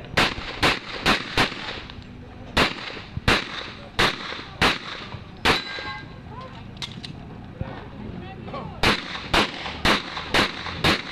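Pistol shots fired in quick strings: a rapid run of four at the start, several spaced shots, a pause of about three seconds, then another rapid run of five near the end.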